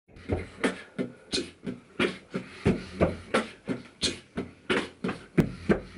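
A steady percussion beat, low thumps alternating with sharper hissing hits, about three hits a second.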